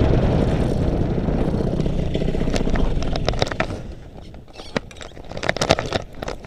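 Paramotor landing: the rush of the motor and air fades away over the first three seconds or so, then a run of scuffs and clicks follows as the pilot touches down on the grass and the wing comes down.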